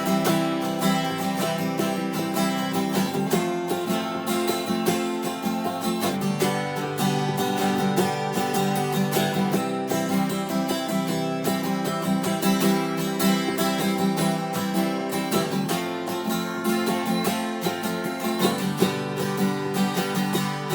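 Acoustic guitar strummed in a steady rhythm: an instrumental break in a country song.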